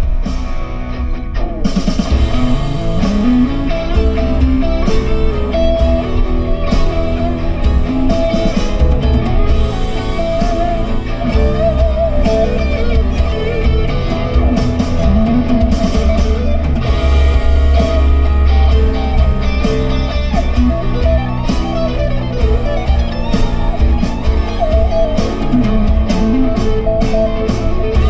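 A rock song with guitars and a drum kit over a heavy bass line, played over the Dongfeng eπ007's 20-speaker audio system.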